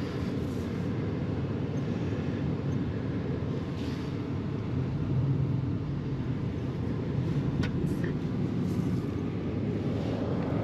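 Four-wheel-drive pickup truck driving slowly: a steady low engine and road rumble, with a couple of faint sharp clicks about seven and a half seconds in.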